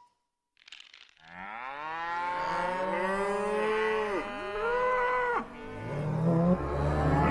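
Moo can toy's cow moo, edited into several layered copies whose pitch rises and then arcs up and down. It breaks off about five seconds in, and a lower, steadier moo takes over near the end.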